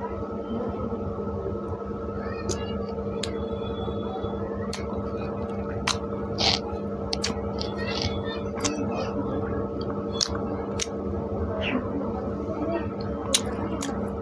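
Mouth eating sounds: chewing of soft pav bread soaked in bhaji, with scattered short wet smacks and clicks over a steady hum.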